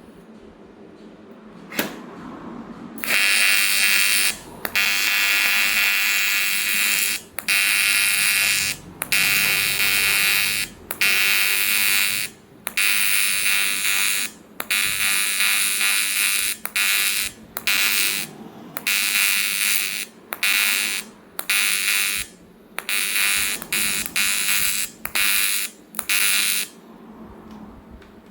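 AC TIG welding arc on aluminium, a loud, harsh buzz struck and broken over and over in bursts of one to two seconds with short gaps between them. A single click comes shortly before the first burst.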